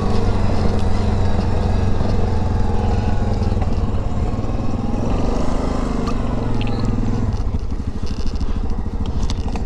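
Yamaha Grizzly 700 ATV's single-cylinder four-stroke engine running under steady throttle. About seven seconds in the throttle comes off and the note drops to a lower, rougher chugging as the quad slows.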